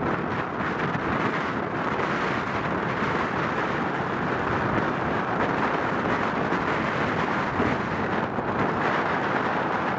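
Boeing 737 jet engines running at low power while the airliner taxis, a steady rumbling noise with wind on the microphone.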